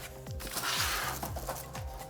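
Background electronic music with a steady kick-drum beat and held synth tones, with a short burst of hiss about half a second in.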